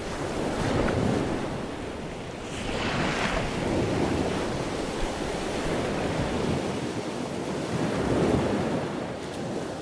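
Waves washing on a shore, with wind buffeting the microphone, the noise rising and falling in slow swells.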